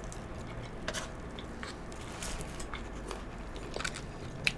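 Quiet eating sounds: chewing fried takeout food, with a few faint sharp clicks about a second in and near the end.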